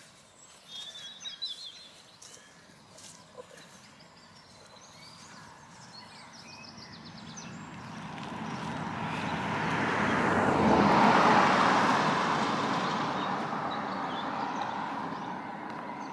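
Noise of a passing engine swells slowly to a peak about eleven seconds in, then gradually fades. Birds chirp during the first few seconds.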